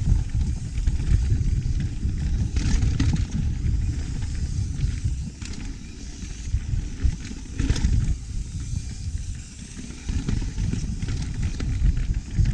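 Mountain bike (Pivot Firebird 29) rolling fast down a dirt trail: a constant low rumble of wind buffeting the chest-mounted action camera's microphone, with tyres on dirt and the bike rattling over roots and rocks. A couple of sharper knocks stand out, about three seconds in and near eight seconds.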